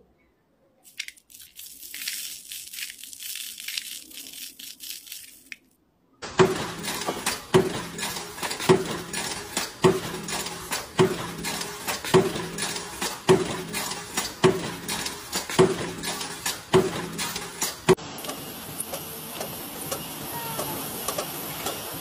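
Tiny glass seed beads rustling as they swirl in a spinning bead-loader bowl. Next, a mechanical punch press strikes steadily about once a second, roughly eleven times, stamping metal parts. Near the end comes a steadier machine running sound.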